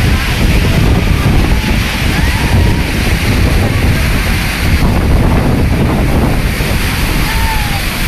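Water rushing from a dam's open spillway gates: a loud, dense, steady roar, with wind and spray buffeting the microphone.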